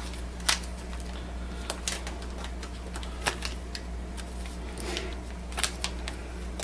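Crinkles and scattered sharp clicks from the plastic wrapper of an inkjet ink cartridge being handled and pulled open by hand, over a steady low hum.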